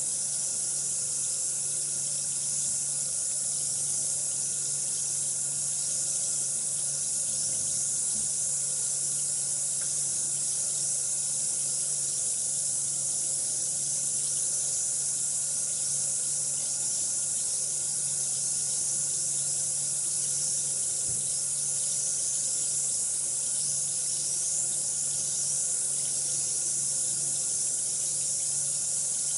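Bath bomb fizzing in water: a steady high crackling hiss of bubbles that does not let up, over a faint low hum.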